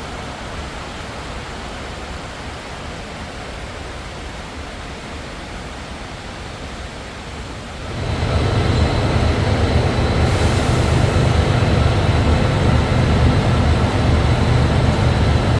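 Running noise of a KTM passenger train heard inside the carriage: a steady rush that grows much louder about halfway through, with a deep rumble and a faint high whine. A brief high squeal comes a few seconds after it gets louder.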